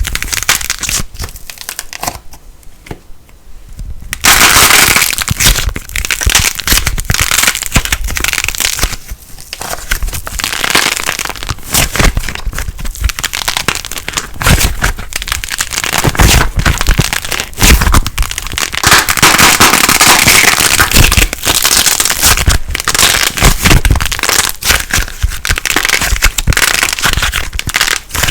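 Crackling light plasticine being squeezed and kneaded, giving dense, loud crackling and popping, with a quieter stretch about two seconds in before it picks up again.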